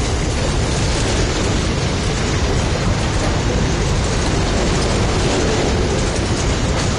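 SCT freight train's box wagons rolling past close by: a loud, steady rumble and rush of steel wheels on rail.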